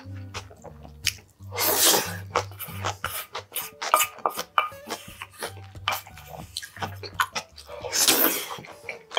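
Close-miked eating sounds: a wooden spoon clicking and scraping in a small stainless steel bowl, with wet chewing and two long slurps, one about two seconds in and one near the end.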